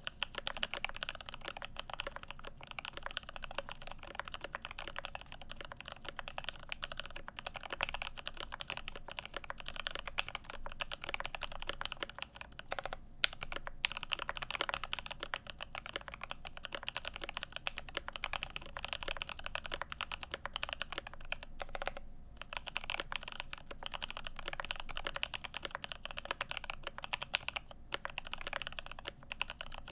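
Typing on a GMMK Pro mechanical keyboard with lubed CannonKeys Lavender switches, a fast, continuous run of keystroke clacks with a few brief pauses.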